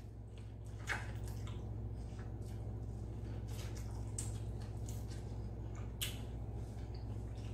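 Wet eating sounds: scattered soft smacks and slurps as sauce-drenched corn on the cob is sucked and chewed, over a steady low hum.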